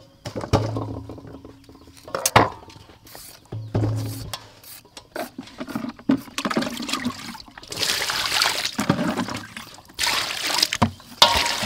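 Hand peelers clicking and scraping against a steel bowl. In the second half, water is poured from a jug into a steel bowl of vegetables and splashes in two or three rushing spells.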